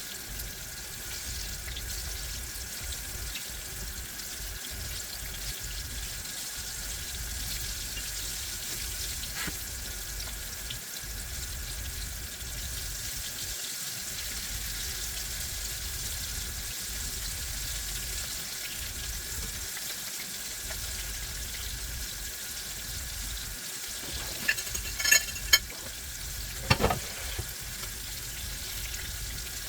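Cornmeal-breaded tomato slices frying in hot grease: a steady sizzle, with a few sharp clicks and a knock near the end.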